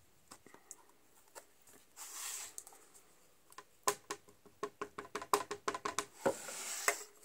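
A small ink pad being tapped again and again onto a red rubber cattail stamp to ink it: a rapid run of light taps lasting about two seconds. A soft brushing, sliding hiss comes shortly before the taps and again just after.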